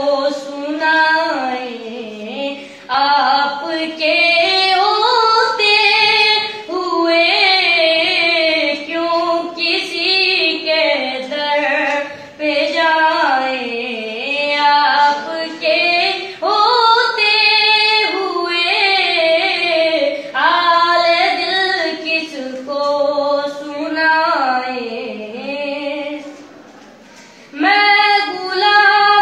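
A boy singing a naat, an Urdu devotional poem, unaccompanied: one high child's voice carrying long, ornamented lines, with a short pause for breath near the end before he sings on.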